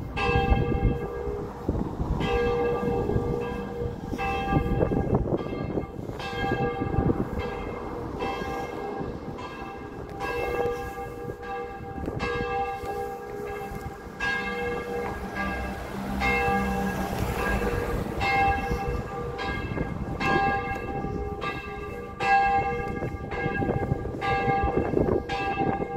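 A single church bell tolling in its tower, struck about once a second in a steady rhythm, each stroke ringing on into the next.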